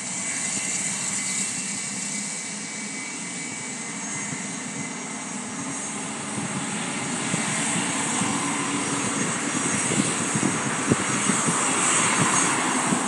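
Twin turbofan engines of a Bombardier Challenger 300 business jet running at taxi power, a steady whine over a rushing hiss. The sound grows louder in the second half as the jet swings around to line up on the runway.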